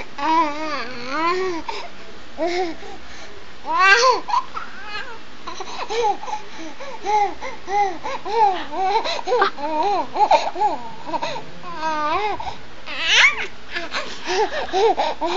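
A baby laughing and babbling in a string of short, high-pitched syllables, with louder outbursts about four seconds in and again near the end.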